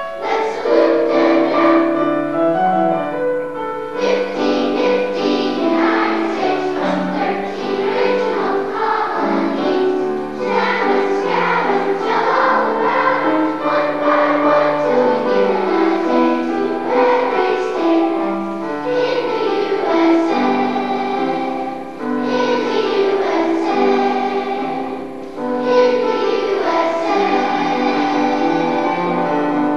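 Children's choir singing a song with piano accompaniment.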